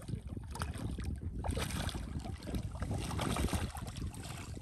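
Hooked silver carp thrashing at the water's surface, splashing repeatedly, with a steady low wind rumble on the microphone.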